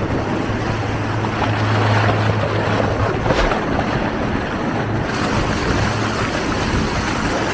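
Water rushing and splashing along the hull of a small motorboat running at speed, over the steady low hum of its engine, which fades briefly a few times. Wind buffets the microphone.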